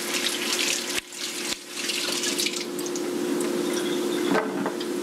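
Kitchen tap running into a sink, water splashing over hands and produce being rinsed under it. The flow sound briefly drops out twice about a second in.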